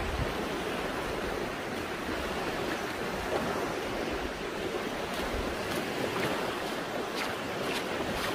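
Small waves breaking and washing up a sandy beach in a steady surf wash.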